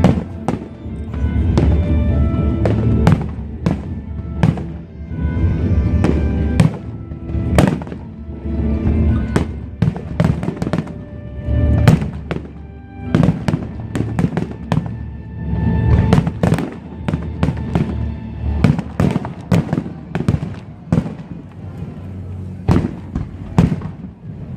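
Aerial fireworks bursting in quick, irregular succession, many sharp bangs and crackles, over music playing throughout.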